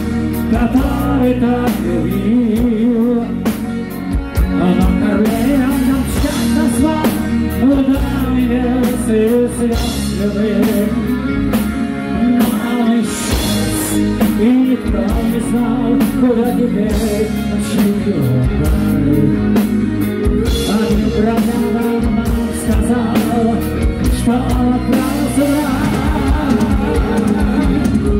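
A heavy metal band plays live: a man sings lead vocals over electric guitars, bass guitar and a drum kit.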